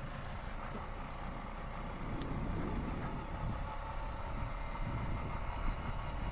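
Honda Foreman 520 ATV's single-cylinder engine running steadily under way, with road and wind noise, a little louder from about two seconds in. A brief high tick about two seconds in.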